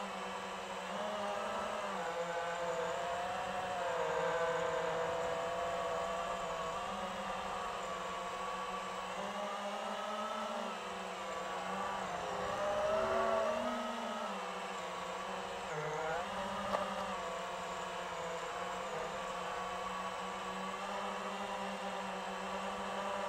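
FPV quadcopter's motors and propellers whining steadily, the pitch rising and falling as the throttle changes through turns. A single short click about seventeen seconds in.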